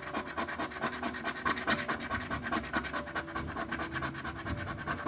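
A 1916 Canadian one-cent coin scratching the coating off a lottery scratch-off ticket in quick, even strokes, about eight a second, stopping abruptly near the end.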